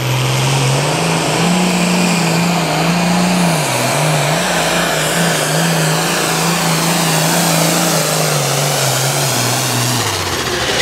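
A single-turbocharged International hot farm pulling tractor's engine running at full throttle as it drags a weight-transfer sled. Its pitch wavers up and down with the load and falls away near the end as the run finishes.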